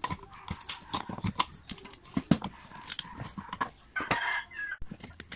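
Plastic housing of a Makita electric planer clicking, knocking and creaking as hands force a burnt stator out of it, with a longer scrape about four seconds in. The stator has scorched and fused to the plastic, so it sticks.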